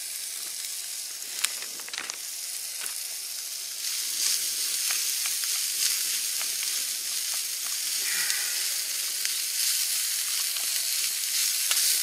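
Food sizzling in a nonstick Primus LiTech frying pan over a spirit burner, the sizzle growing louder about four seconds in, with light clicks and scrapes of a wooden spatula stirring the pan.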